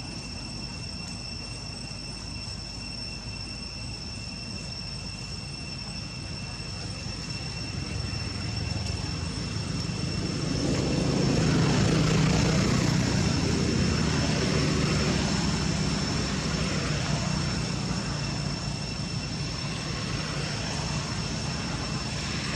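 Low engine drone that swells to its loudest about twelve seconds in, then slowly fades, over a steady high-pitched whine.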